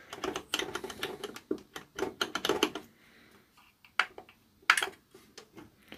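Audio played through an Onkyo A-9155 stereo amplifier coming out very choppy and quiet, breaking up into short bursts, then dropping to near nothing with a few sharp clicks. The amplifier has a fault in its output.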